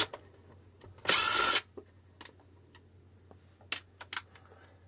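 A cordless electric screwdriver runs in one short half-second burst about a second in, backing a screw out of an e-bike battery pack's casing, with two light clicks near the end.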